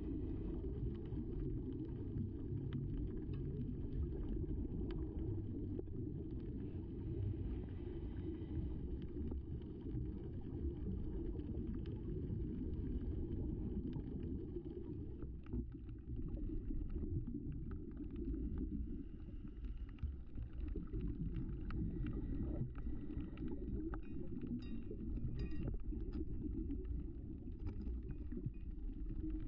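Muffled low rumble of moving water picked up underwater by a GoPro sealed in its waterproof housing, with faint scattered clicks over it.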